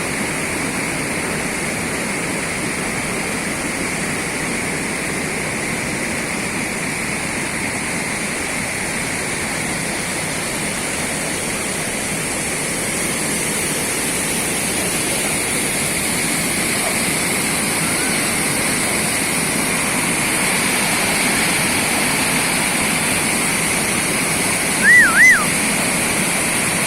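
Waterfall rushing steadily, a continuous even roar of falling water. Near the end come two short, arching chirps.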